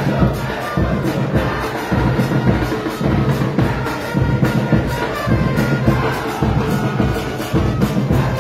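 Football supporters' band playing: bass drums beating a steady rhythm under trumpets and other brass horns, with a crowd of fans chanting along.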